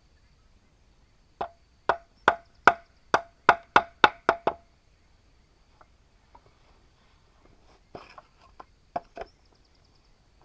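Bamboo being struck by hand tools, hollow wooden knocks with a short ring: a quick run of about nine blows, then a few more near the end.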